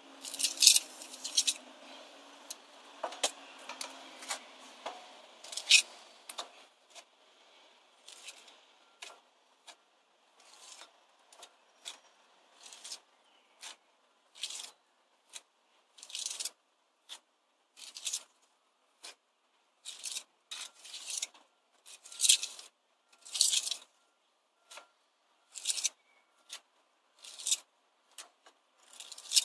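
Steel pointing trowel scraping mortar into brick joints in short, separate strokes, roughly one a second.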